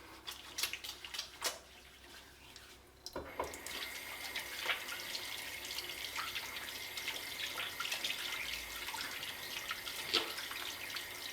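Wet hands rubbing together with a few soft clicks, then about three seconds in a sink tap is turned on and water runs steadily over the hands as they are washed.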